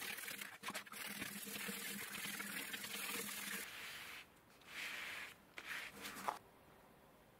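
Brush scrubbing an old leather seat cover, a steady rough hiss that stops about three and a half seconds in. It is followed by a few short rubbing swishes of gloved hands pressing and smoothing the leather.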